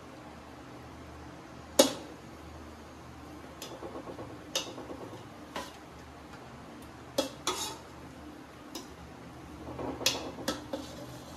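Metal cutlery clinking and scraping against cookware: a spoon or ladle knocking on a pot or plate about nine times at uneven intervals, the loudest strike about two seconds in, with softer scraping between strikes.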